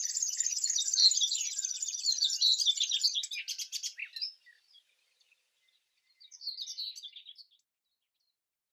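Birds chirping: many quick, high calls overlapping, which thin out and stop about four seconds in. A shorter burst of chirps follows a couple of seconds later.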